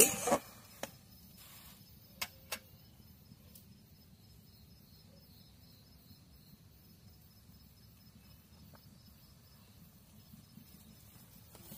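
Faint, steady chirping of night insects, with a few sharp taps of a metal spoon on the aluminium karahi in the first few seconds.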